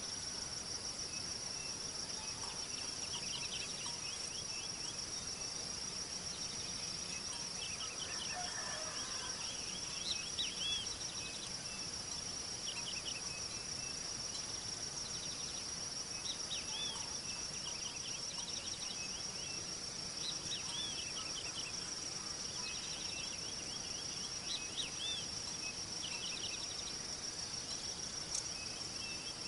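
A steady high trilling chorus of insects, like crickets, with bursts of short chirping calls coming and going over it.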